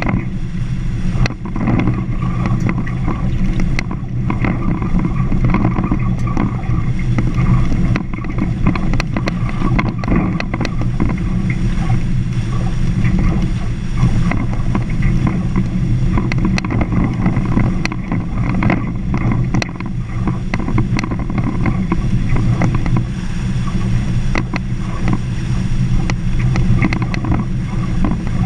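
Vehicle driving steadily along a gravel dirt road: constant engine and tyre rumble with frequent small clicks and rattles.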